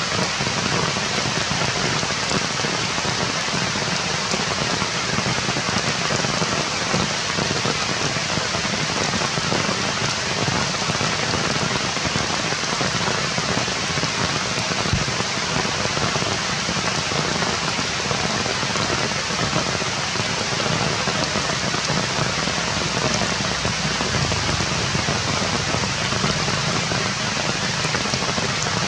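Steady rain falling on forest foliage: an even hiss that does not let up.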